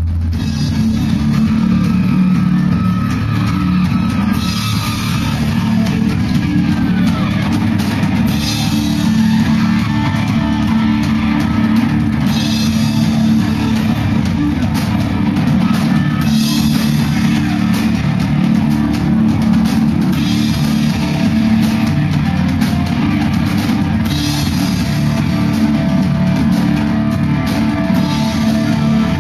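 Live rock band playing: electric guitars, bass and a drum kit, with a cymbal crash about every four seconds.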